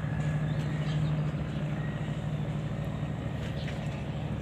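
Boat engine running steadily, a low, even hum with water and engine noise above it.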